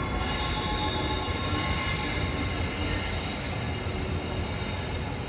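EF81 electric locomotive rolling slowly over the points and curve, its wheels squealing in several steady high tones over a low, continuous rumble.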